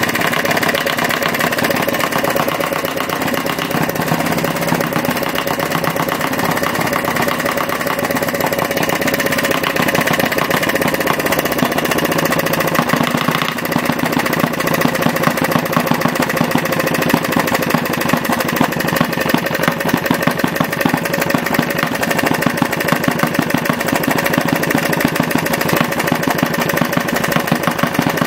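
Retrol 16cc single-cylinder model diesel stationary engine, with mechanical injection and compression ignition, running steadily at a fast, even firing beat. Its governor holds the speed without hunting up and down.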